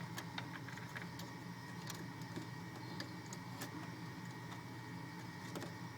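Steady machine hum made of several low tones, with scattered light clicks and taps from fan cables and plastic parts being handled and tucked inside a server chassis.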